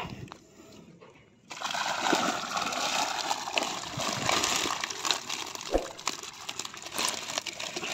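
Water splashing and sloshing, with many small knocks, starting suddenly about a second and a half in.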